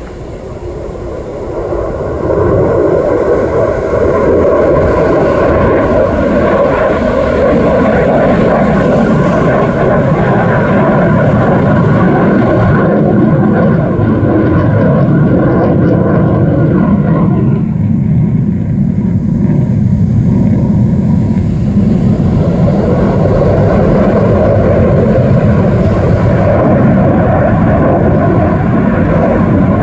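A fighter jet flying overhead. Its jet-engine noise swells over the first two seconds, then holds loud and steady, with a slowly shifting, whooshing tone as the aircraft moves across the sky.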